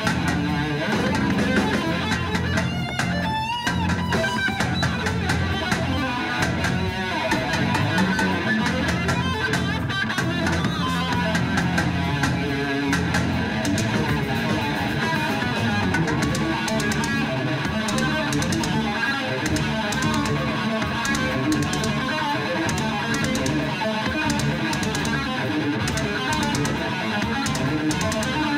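Heavy metal band playing live: electric guitar, bass guitar and drum kit in a dense instrumental passage, with some held guitar notes in the second half.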